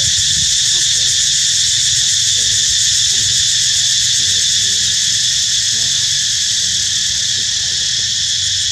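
A dense, steady chorus of insects: a shrill high hum in several layered bands that never lets up. A low rumble runs underneath.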